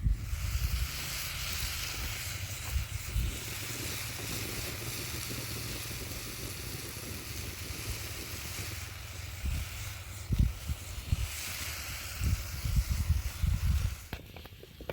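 Strong wind blowing steadily with a hiss, gusting and buffeting the microphone in low rumbles, heaviest in the last few seconds.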